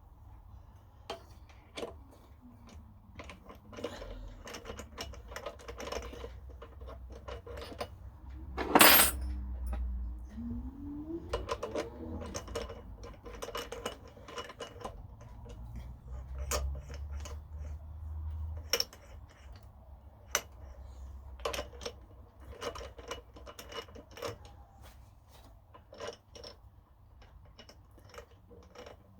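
Small metal tools and parts clinking and clattering as they are handled on a workbench, in scattered taps and knocks over a low hum, with one loud metallic clank about nine seconds in.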